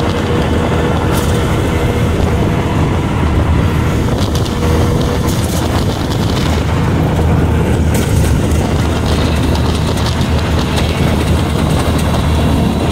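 Auto-rickshaw engine running steadily while riding at speed, with road and wind noise, heard from inside the open passenger cabin.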